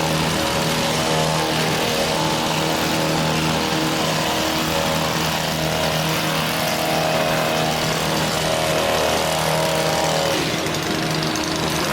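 Gas-powered hedge trimmer running steadily at high revs while cutting a cedar hedge.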